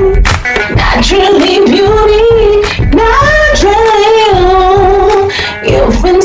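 Background music: a woman singing long held notes over an accompaniment.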